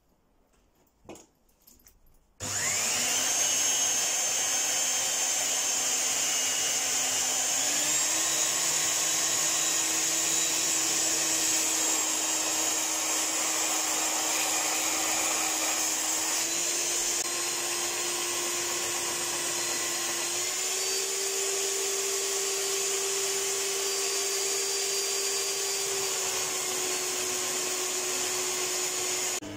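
Handheld belt sander, clamped as a stationary grinder, starts up about two and a half seconds in and runs steadily while a steel knife blade is ground against its belt. Its motor whine steps up in pitch a few times over a grinding hiss.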